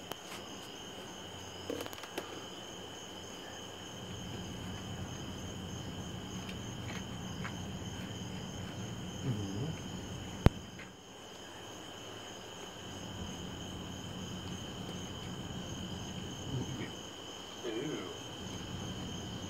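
Crickets chirring in a steady, unbroken high-pitched chorus, with one sharp click about halfway through.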